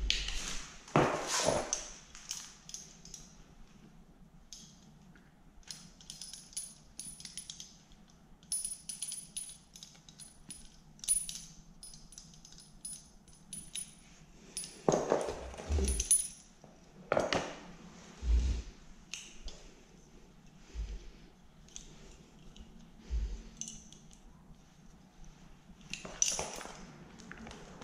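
A brush scrubbing a plastic chainsaw cover in a few short bursts of scraping, with small clicks and metallic clinks of hand tools and the plastic part being handled in between.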